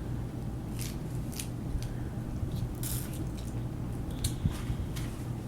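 Scattered light clicks and crinkles of hands handling takeout food packaging and sauce cups, over a steady low hum.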